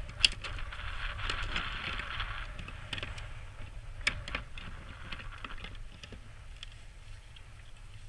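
Handling noise as pliers work a fishing lure out of a gull's bill: light clicks and rustling, with two sharper metallic clicks, one near the start and one about four seconds in, over a steady low rumble.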